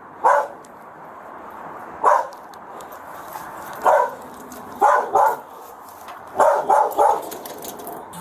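A dog barking repeatedly: single barks and quick runs of two or three, a second or two apart.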